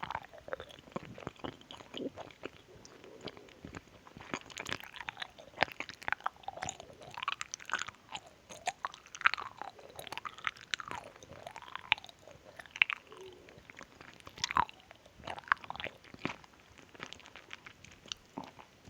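Close-miked chewing of a candy: wet mouth clicks, smacks and squelching as the candy is worked between the teeth and tongue.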